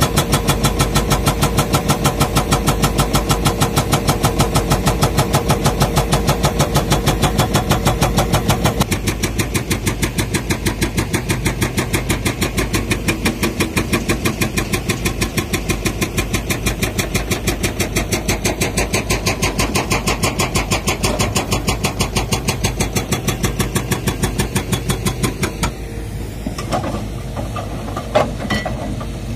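Excavator-mounted hydraulic breaker hammering rock with rapid, even blows over the excavator's diesel engine. The blows ease after about nine seconds and stop a few seconds before the end, leaving the engine running and a few scattered knocks.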